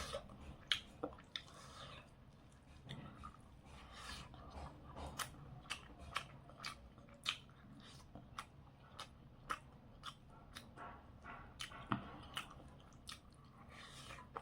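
A person chewing a potato and soyabean fry close to the microphone: faint, irregular clicks and smacks of the mouth, a few each second.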